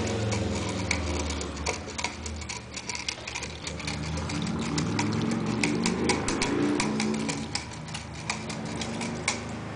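Ferret claws scrabbling on wire cage bars: many light, irregular clicks and rattles, thickest in the middle, over a low steady hum.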